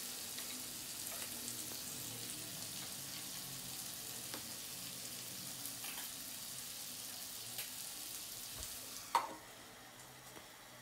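Tandoori-marinated chicken legs sizzling as they fry in oil in a pan, with a few light scrapes of a metal spoon. About nine seconds in, a glass lid clanks down onto the pan and the sizzle goes quieter and muffled under it.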